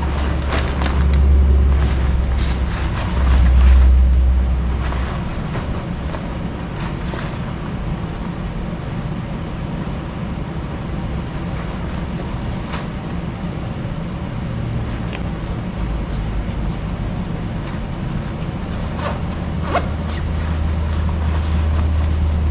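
Rustling of the stiff fabric of WindRider Boreas waterfowl hunting bibs as they are pulled on and hitched up, over a steady low rumble that is loudest in the first few seconds.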